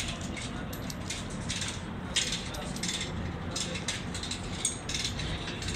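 Irregular metallic clinks and rattles over a steady low rumble, with a few sharper clicks a couple of seconds in and near the end.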